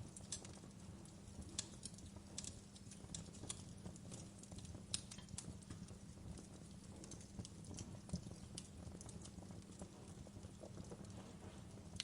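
Fireplace crackling: irregular small pops and snaps over a low, steady rumble.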